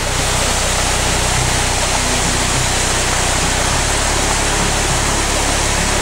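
Whitewater river rapids rushing, a steady, loud, unbroken wash of water noise.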